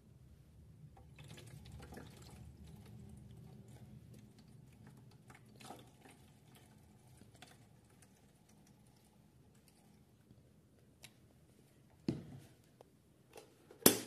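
Toy washing machine turning its drum of wet washing: a faint low motor hum with water moving in the drum, which drops away after about four seconds. Scattered small clicks follow, with a sharper knock about two seconds before the end and the loudest knock right at the end.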